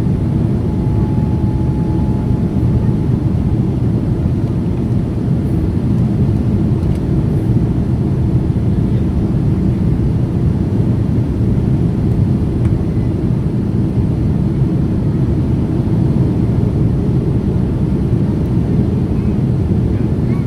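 Steady, loud low rumble of a Boeing 787's jet engines, holding even with no rise or fall.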